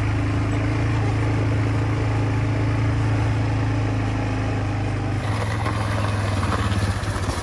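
Quad bike engine running steadily with a low hum. About five seconds in the sound shifts, and near the end it settles into a regular pulsing beat of about five a second.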